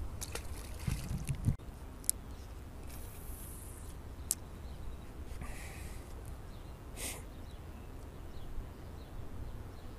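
Wind rumbling on the microphone, with a few sharp clicks and brief hisses from a spinning rod and reel being handled and cast.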